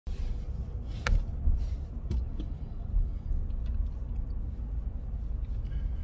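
Low, steady road rumble inside a moving vehicle's cabin, with a single sharp click about a second in.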